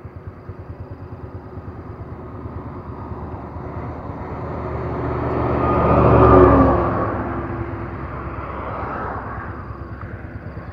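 A heavy truck drives past on the road, its engine growing louder to a peak about six seconds in and then fading away.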